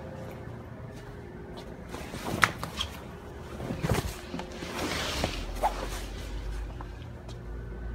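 Rustling and a few sharp knocks and clicks of movement and handling in the middle stretch, over a steady low hum.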